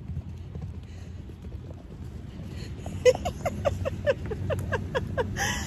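A woman laughing in a rapid string of short 'ha' bursts for about two seconds, starting about three seconds in, over a low rumble of wind on the microphone.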